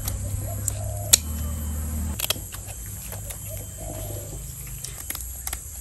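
Kitchen scissors snipping through a snakehead fish's fins and skin on a wooden chopping board: a few sharp clicks, two louder ones in the first half and fainter ones later. A bird coos faintly in the background.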